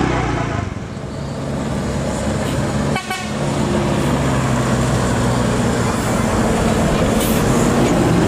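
Tour bus telolet multi-tone air horn. A stepping horn tune fades out just after the start, and after a sudden break about three seconds in, long steady horn notes are held.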